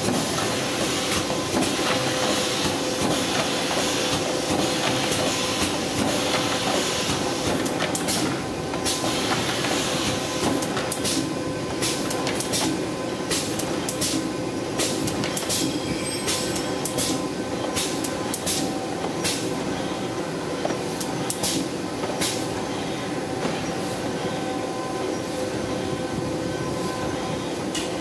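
Automatic box-packing (cartoning) machine running: a steady mechanical clatter with a constant hum, and from about eight seconds in many sharp clicks and knocks from its moving parts.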